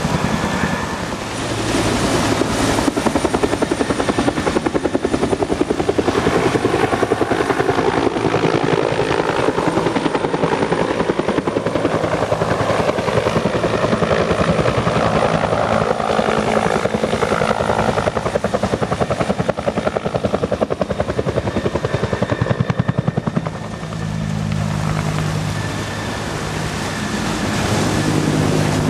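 Two-bladed Huey-type military helicopter flying low past and banking, its main rotor beating rapidly. About 23 seconds in the beat drops away and a steadier low hum is left.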